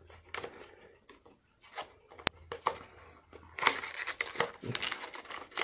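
Sticker seal being peeled off a paperboard box and the box flap pried open: scattered clicks, scratches and paper rustling, with one sharp click about two seconds in and busier scraping near the end.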